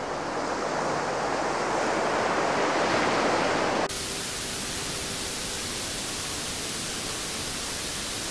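Project Nursery Lion sound soother playing its ocean-waves sound, a rush of noise that swells gradually. About four seconds in it switches abruptly to its white-noise setting, a steady, even hiss.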